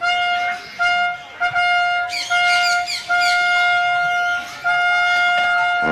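Trumpet fanfare of held notes on a single pitch, broken by short gaps, with chirping over it near the middle.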